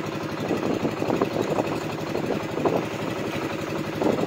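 A small wooden fishing boat's engine running steadily, a fast even pulsing.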